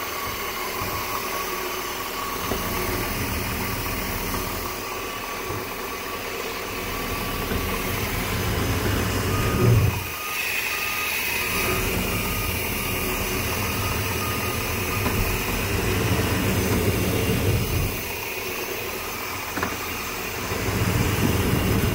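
350 small-block Chevy V8 bus engine running, heard from inside the bus, steady apart from a brief louder swell about ten seconds in and a rise again near the end.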